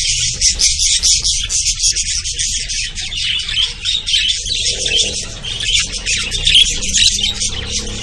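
A flock of caged parakeets chattering and squawking together: a dense, high-pitched din of many short overlapping calls.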